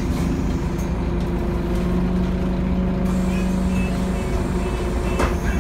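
Scania N230UD OmniCity double-decker bus's five-cylinder diesel engine running steadily under way, with road rumble. A short knock comes about five seconds in.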